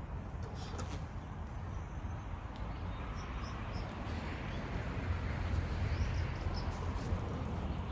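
Honey bees buzzing in a steady hum around an open, heavily populated hive.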